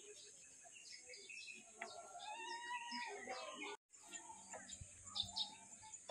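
Faint bird chirps and distant voices over a steady high hiss, with the sound cutting out briefly about two-thirds of the way in.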